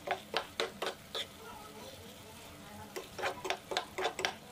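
A metal spoon scraping and clinking against a frying pan as tuna and diced potatoes are stirred, over a light sizzle. There is a quick run of strokes in the first second, a lull, then another run near the end.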